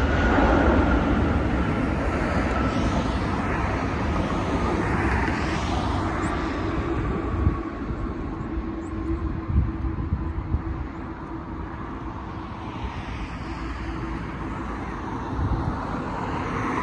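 Boeing 777-300ER's GE90 jet engines on the landing rollout: a low rumble under a whine that slowly falls in pitch, the whole noise gradually fading.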